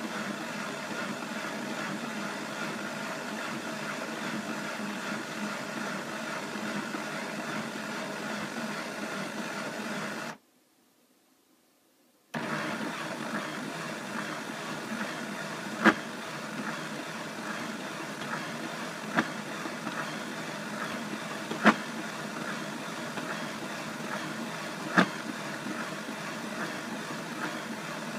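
Bissell SpotBot Pet portable carpet spot cleaner running its hands-free cleaning cycle, a steady motor hum. It cuts out for about two seconds partway, then resumes with a sharp click about every three seconds.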